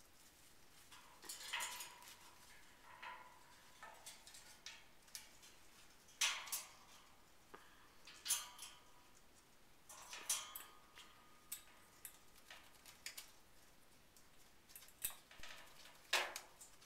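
An Eclectus parrot handling toys in its metal cage: scattered light clicks and metallic clinks at irregular intervals, a few of them ringing briefly.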